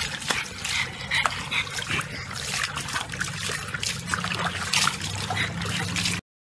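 Water splashing and sloshing in a plastic tub as a French bulldog sits and shifts in it, sending water over the rim onto concrete.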